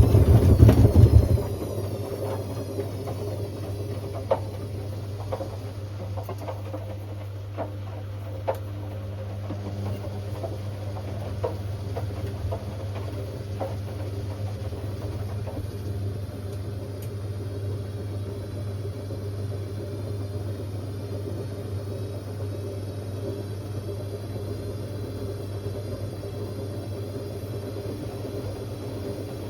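Hotpoint Aquarius WMA50 washing machine running. A loud low drone cuts off about a second and a half in, leaving a steady low hum with a few sharp clicks.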